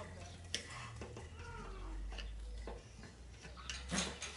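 Hydraulic jack being pumped by hand: faint scattered clicks and a few short squeaks.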